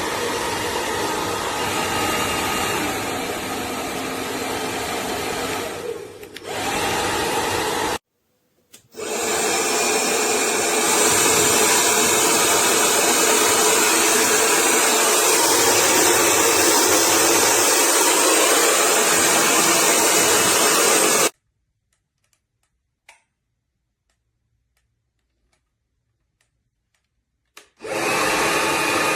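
Hair dryer blowing steadily, with a dip about six seconds in and a brief cut-out at about eight seconds. It comes back louder with a high whistle in the airflow and runs until it stops abruptly about twenty-one seconds in. After several seconds of near silence it starts again near the end.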